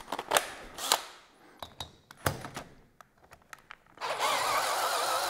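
Several sharp clicks and knocks of a socket and drill being fitted onto a bolt, then about four seconds in an 18-volt DeWalt cordless drill starts up and runs steadily with a wavering whine, driving a rocker-box bolt out of a cylinder head. The drill is weak on its batteries.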